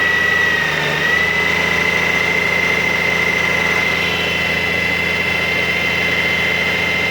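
Honda GL1800 Gold Wing flat-six engine idling in first gear, with a steady high-pitched whine over the running that dips briefly in pitch about a second in. The owner takes this typical GL1800 noise for the timing chain, not a failing alternator drive gear.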